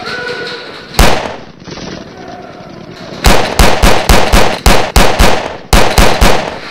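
Pistol gunshots: a single shot about a second in, then a rapid string of about eleven shots at roughly three to four a second, emptying the magazine down to its last round.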